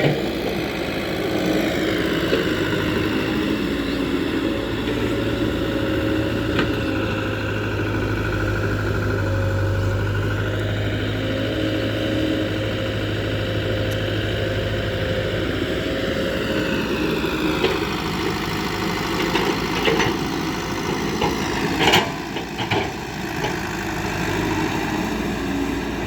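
Diesel engine of heavy farm or construction machinery running steadily, its speed shifting a little now and then, with a few sharp clanks about twenty seconds in.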